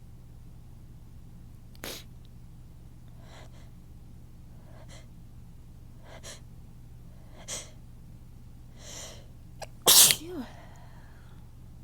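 A person's sneeze buildup: a run of short, hitching breaths about every second and a half, then one loud, sudden sneeze near the end, trailing off in a brief falling vocal sound.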